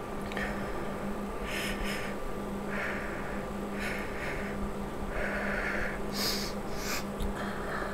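A young woman crying: ragged, sobbing breaths and sniffs, about one a second, over a steady low electrical hum.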